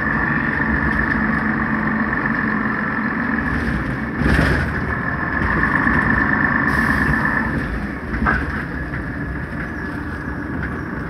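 Scania city bus heard from inside the passenger cabin while driving: the diesel engine and running gear make a steady noise with a steady high whine over it. A loud thump comes about four seconds in, and a smaller one shortly after eight seconds.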